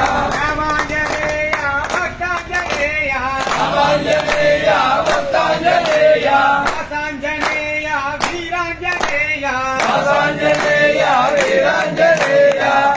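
A group of Ayyappa devotees singing a devotional song together in chorus, with sharp hand claps keeping a regular beat.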